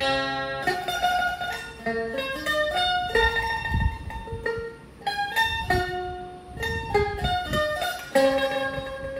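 Suzuki Ran red electric soprano taishogoto playing a solo melody. Its metal strings are picked while the typewriter-like keys stop the notes, one note at a time, each note ringing on.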